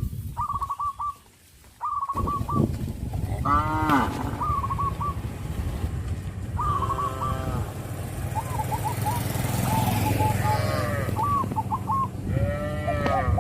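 Several cows mooing, one after another, with drawn-out calls of differing pitch as the cows call to each other.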